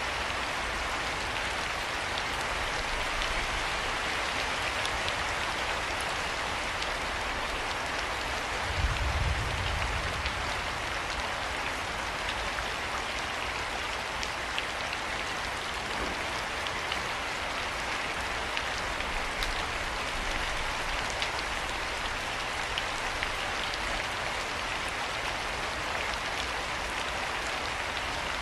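Steady rain falling on a surface, with separate drops ticking close by and a brief low rumble about a third of the way in.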